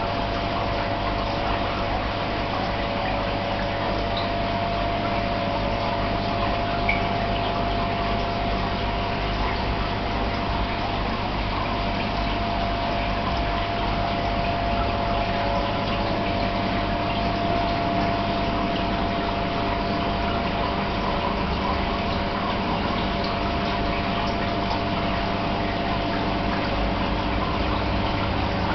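Aquarium filter pump running steadily: a constant hum with a faint steady tone under a wash of moving water.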